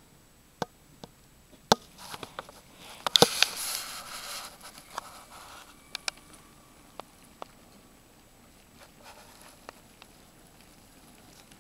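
LEGO trains rolling past on plastic track, the wheels clicking over rail joints. A denser rattling run of clicks from about two seconds in lasts a few seconds and is the loudest part, with scattered single clicks before and after.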